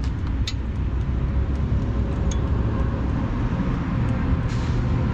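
Steady low outdoor rumble, with a few faint light ticks.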